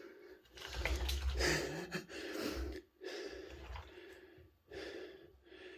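A caver breathing heavily in a series of about four hard breaths while climbing up loose rubble in a mine passage, with low scuffing and knocking of body and rock under the first couple of breaths.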